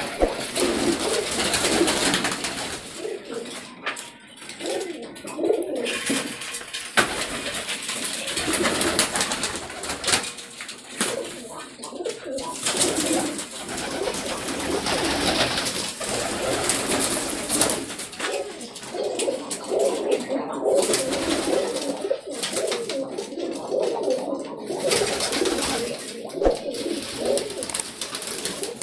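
Many domestic pigeons cooing over one another in a continuous, overlapping warble.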